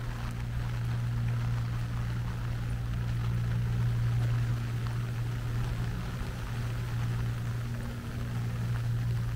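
A steady low mechanical hum, like a running motor, under a soft hiss of rain.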